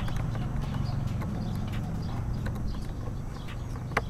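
Hand hex driver working a bolt loose on a motorcycle's rear bodywork: a run of light, irregular clicks of the tool against metal, with one sharper click near the end, over a steady low background hum.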